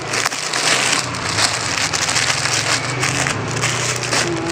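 Clear plastic clothing bags crinkling and crackling as packaged dresses are handled and moved about.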